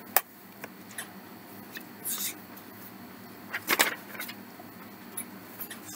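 Faint handling noises: a sharp click just after the start, then short rustles about two seconds in and again near four seconds, over a steady background hiss.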